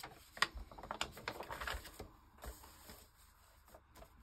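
Paper and craft tools being handled on a work table: a quick run of small clicks, taps and rustles in the first two seconds, then fainter handling.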